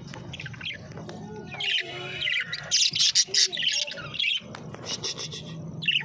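Many caged birds chirping and squawking at once, a dense mix of short high-pitched calls that is busiest in the middle.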